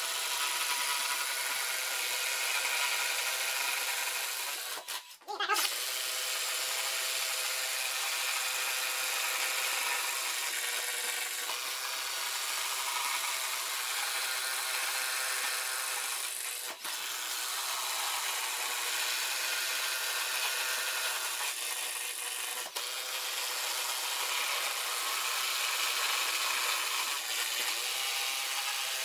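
Two cordless brushless impact drivers, a Ryobi and a DeWalt, running and boring 1 1/4-inch self-feeding spade bits through stacked wooden boards. The sound is a steady, dense mechanical whir with a short break about five seconds in.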